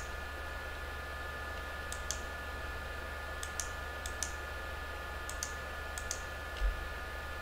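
Computer mouse clicking in quick pairs, about six times, every second or so, over a steady electrical hum.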